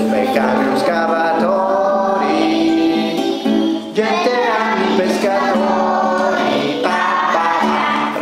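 Music: a song with voices singing a melody over a steady accompaniment.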